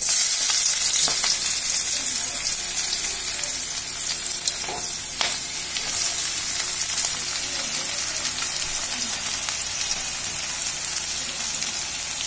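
Chopped onions dropped into hot oil in a kadai, sizzling loudly the moment they hit and then frying in a steady sizzle that eases slightly over the following seconds.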